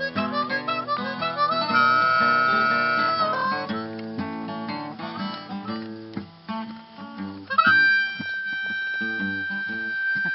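Acoustic guitar and harmonica music: quick plucked guitar notes, a held harmonica chord about two seconds in, and a long held harmonica note starting near three quarters of the way through.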